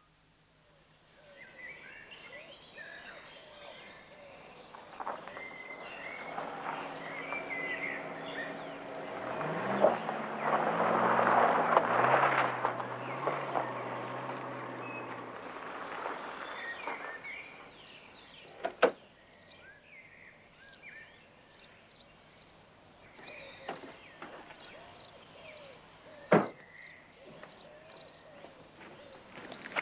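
Birds singing while a car drives up, its engine swelling and then cutting off about halfway through. Two sharp knocks follow, about seven seconds apart.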